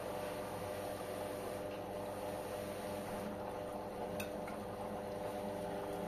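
LG Intellowasher front-loading washing machine tumbling a small wash load: a steady motor hum with water sloshing in the drum. A single sharp click about four seconds in.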